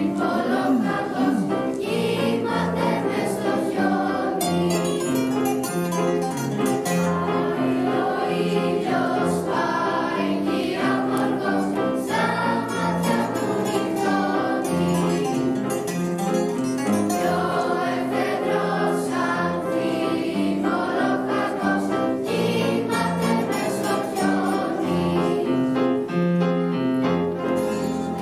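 Mixed choir singing a song, accompanied by an ensemble of plucked string instruments (bouzoukis, lutes, guitars) and piano.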